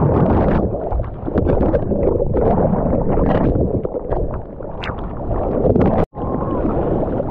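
Ocean water rushing and splashing close against a surfer's GoPro microphone, loud and irregular. The sound breaks off completely for an instant near the end.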